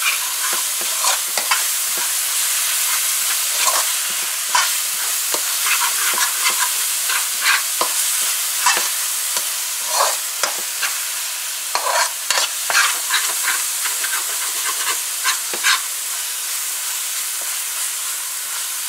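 Curry paste sizzling as it fries in a non-stick pan, with a spoon stirring and scraping it against the pan in irregular strokes, which become sparse near the end.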